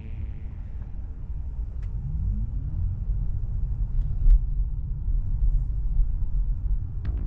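Tesla Model 3 driving along, with a steady low road and tyre rumble. A faint tone rises for about a second, two seconds in.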